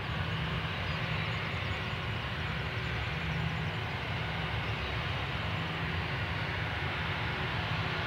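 An Airbus A340-300's four CFM56-5C turbofan engines running at low thrust as the airliner taxis, a steady rumble and hiss.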